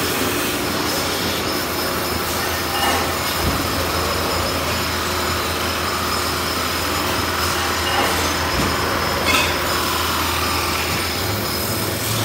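CNC metal-spinning machine running with a sheet-metal blank spinning on its mandrel: a steady metallic hiss with a thin high whine over a low hum, and a few faint clicks.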